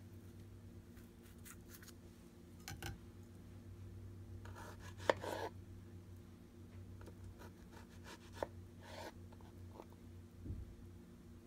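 Kitchen knife cutting the hulls off fresh strawberries and slicing them on a board: a few short slicing scrapes and light clicks of the blade, the loudest about five seconds in, over a faint steady low hum.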